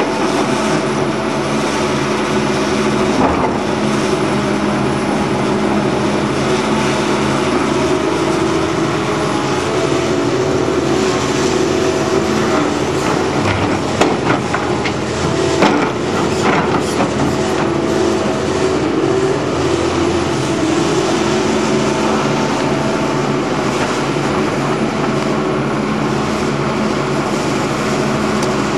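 Excavator's diesel engine running steadily under load. About halfway through come several knocks and a rattle as the bucket tips spoil and rubbish into a steel-sided wagon.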